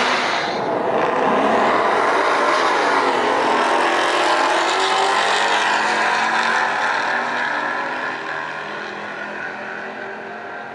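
Cars launching and accelerating hard down a drag strip, their engine notes climbing in pitch. Loud at first, then fading over the last few seconds as they pull away.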